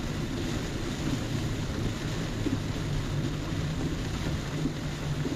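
Steady car-cabin noise while driving in heavy rain: a low engine hum under the hiss of rain and wet tyres.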